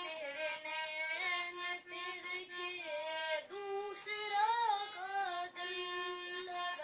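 A boy singing a Hindi Krishna bhajan to his own harmonium accompaniment: the harmonium's reeds hold steady notes while his voice carries the melody with gliding ornaments.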